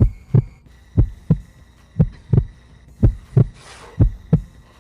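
Heartbeat sound effect: five slow double thumps, lub-dub, about one a second.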